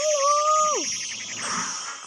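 Cartoon sound effects: a held, voice-like pitched note that rises slightly and then slides down just under a second in, over a high glittering magic shimmer.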